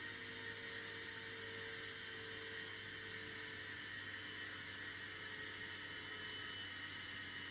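Electric gyroscope rotor of a vintage aircraft turn and slip indicator running, a steady whir with several high-pitched whining tones over a low hum. A lower tone fades out about halfway through.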